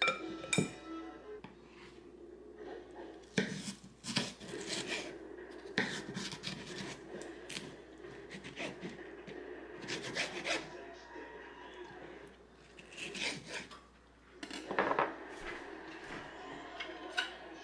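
Kitchen knife scraping watermelon flesh off the rind and cutting on a wooden chopping board: irregular rasping strokes with sharper knocks of the blade.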